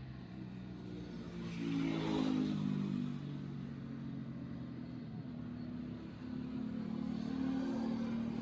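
Motor vehicle engines running past, swelling to their loudest about two seconds in and again near the end.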